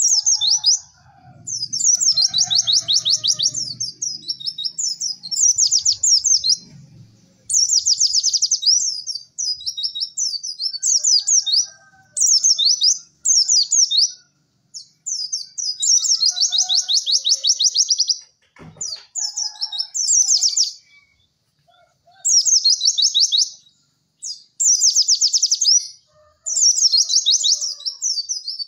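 White-eye (pleci) song: repeated bursts of rapid, high-pitched chattering trills, each a second or two long with short pauses between. A single sharp click sounds about two-thirds of the way through.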